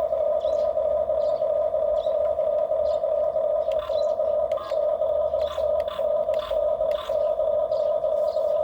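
Small electric motors of radio-controlled toy construction machines whining steadily at one high pitch, with scattered light plastic clicks from the moving parts.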